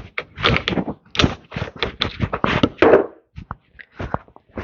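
Irregular knocks and clicks of hand tools working on a stubborn metal tractor part, about a dozen sharp strikes at uneven spacing as it is forced loose.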